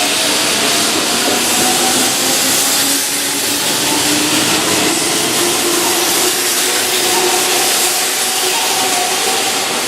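Keihan 2600-series electric train running by, a steady loud rush of wheels on rail with faint whining tones that drift slowly in pitch.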